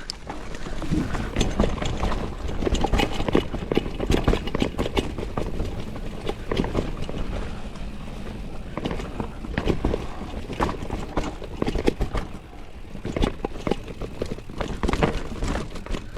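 Mountain bike riding a rough dirt trail: tyre noise with a dense run of irregular short knocks and rattles as the bike rolls over the uneven ground.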